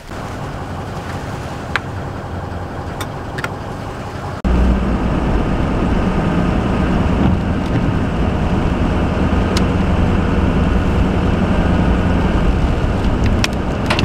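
Van engine and road noise heard from inside the cab while driving, with a few sharp ticks. About four seconds in it cuts abruptly to a louder, steady low engine hum.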